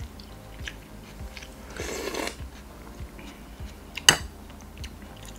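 Close-up mouth sounds of someone eating Sarawak laksa: chewing rice vermicelli noodles with soft wet smacks, a short slurp about two seconds in, and one sharp clink of metal cutlery against the glass bowl about four seconds in.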